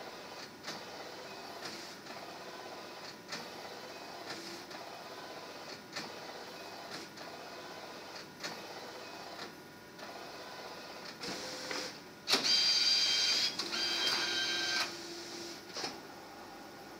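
Ricoh MP CW2200SP wide-format gel-ink printer printing on plain roll paper, its print head shuttling with a short stroke about every 1.3 seconds. About twelve seconds in comes a louder motor whine lasting about three seconds as the finished print is fed out.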